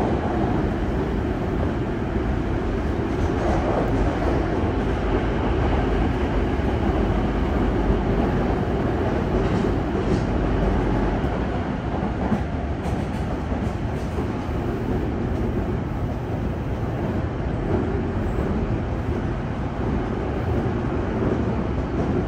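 Steady running noise heard inside a Yokohama Blue Line 3000R subway car at speed: a low rumble of wheels on rail and car-body noise, holding at an even level with no clear rise or fall.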